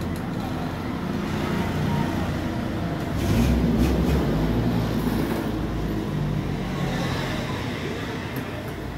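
Road traffic rumble: a motor vehicle's engine passing close by, swelling about three seconds in and fading over the next few seconds.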